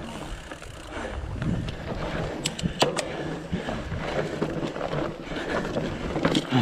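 Mountain bike rolling over a rock garden, its tyres and frame knocking on the rocks under a steady low rumble, with a few sharp clacks about two and a half to three seconds in.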